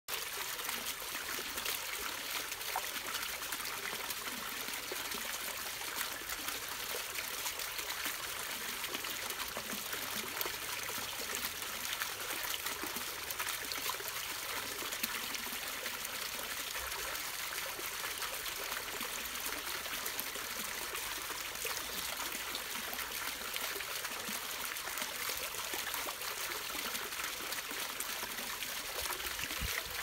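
Steady trickling and splashing of water from a small garden pond fountain and statue spout falling onto the surface of a koi pond.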